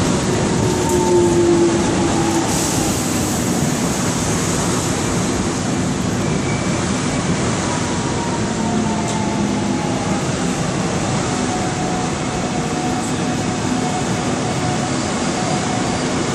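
Electric subway train running slowly alongside the platform: steady wheel and track noise with faint motor whines that drift in pitch.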